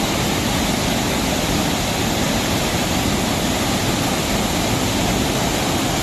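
Waterfall spilling over a rock ledge into a shallow pool, heard up close: a steady, loud rush of falling and splashing water.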